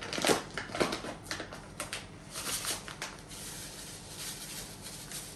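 A bag of sugar crinkling and rustling as it is opened and tipped, with a run of crisp crackles in the first two seconds and a brief hiss of rustling a little past halfway.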